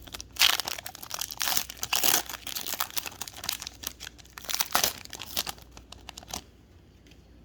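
Plastic trading-card pack wrapper being torn open and crinkled by hand, crackling in irregular bursts that stop about six seconds in.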